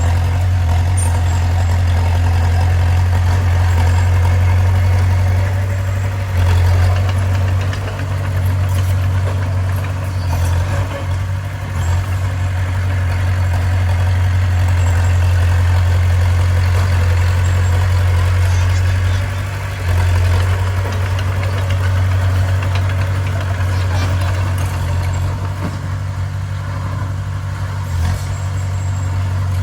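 Bulldozer's diesel engine running steadily with a heavy low drone that dips briefly about four times.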